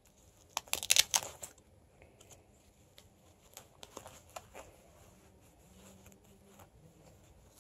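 Handling noise from a fabric running-belt pouch and a small plastic hand-sanitizer bottle being fitted into its pocket: a quick burst of rustling and clicks about a second in, then a few faint taps and scrapes.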